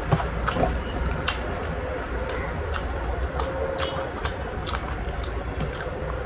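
Close-up eating sounds of spiced chicken heads and feet: irregular sharp clicks and crunches of chewing and small bones, with mouth smacks, over a steady low hum.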